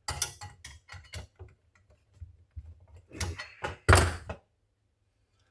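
A series of clicks, taps and knocks from small metal fabrication parts being handled and set down on a workbench. The loudest knock comes about four seconds in.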